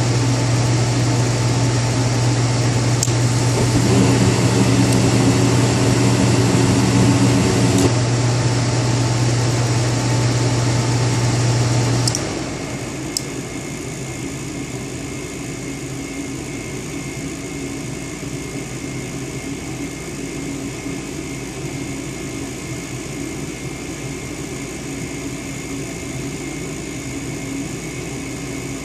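Goodman furnace running with a loud, steady mechanical hum. A little under halfway through, there is a click, the hum cuts off suddenly, and a quieter steady whir carries on.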